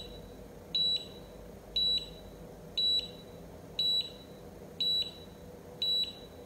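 Cordless automatic hair curler giving short, high single beeps about once a second, six in all, while it holds and heats a strand of hair. These are its timing beeps during the curl; a double beep signals that it is time to release the hair.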